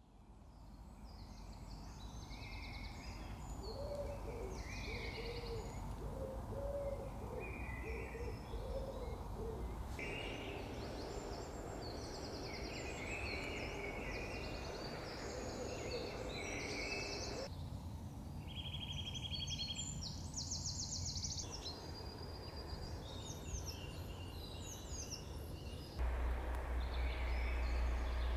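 Woodland birdsong at dawn: many overlapping songs, chirps and trills, fading in from silence over a steady low rumble, with a lower repeated call a few seconds in. A loud deep hum comes in near the end.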